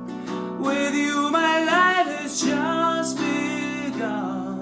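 Rock ballad with acoustic guitar and singing: a voice holds long, wavering notes over the guitar accompaniment.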